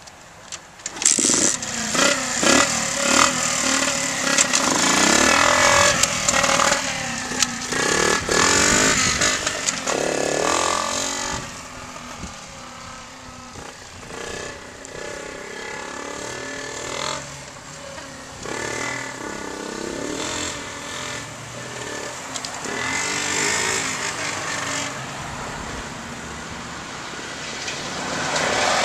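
Lifan 70cc dirt bike's small four-stroke single-cylinder engine starting on choke about a second in, then revving up and down. It drops off as the bike rides away and grows louder again near the end as it comes back.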